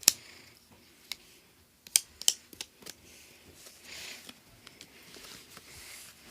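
Sharp clicks and taps of small plastic and metal parts of a tablet being handled and pried apart: one at the start, one about a second in, a quick cluster around two to three seconds in, then faint rustling.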